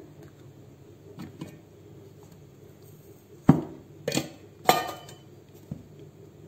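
Stainless steel canister lids being handled and lifted off: a series of sharp metallic clinks and knocks, the loudest about halfway through, with a few faint taps before and one weaker knock near the end.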